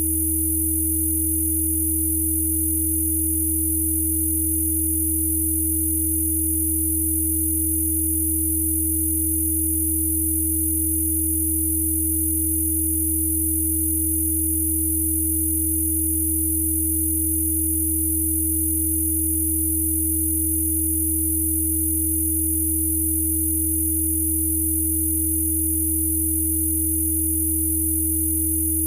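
Electronically generated Rife frequency tones: several steady pure tones sounding together, a low hum, a mid-pitched tone and a thin high whistle, unchanging throughout.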